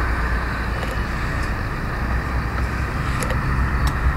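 Steady low rumble and hiss of outdoor background noise, with a few faint ticks.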